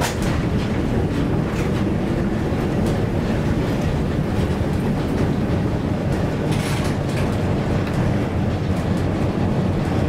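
Vintage Amsterdam tram no. 465 running along the track, heard from inside its wooden saloon: a steady rumble of wheels and motor with rattling and clicking, a louder cluster of clicks about six and a half seconds in.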